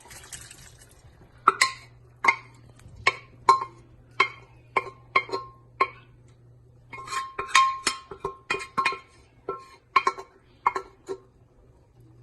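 A metal spoon clanking against a steel cooking pot in a run of sharp, ringing strikes, then a quicker run about seven seconds in, as cooked beef and its liquid are scooped out of a pressure cooker into a pan.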